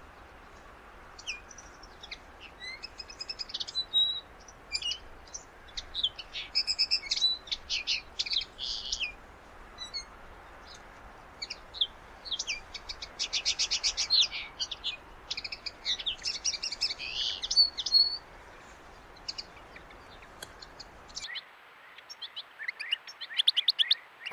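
A finch singing a fast twittering song of trills and buzzy notes in repeated phrases, over a steady background hiss. About three seconds before the end the hiss drops away and another burst of twittering begins.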